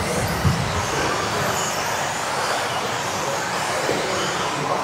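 A pack of 1:10 electric off-road RC buggies with modified brushless motors racing together. Their motors and tyres make a steady, dense noise that echoes around a sports hall.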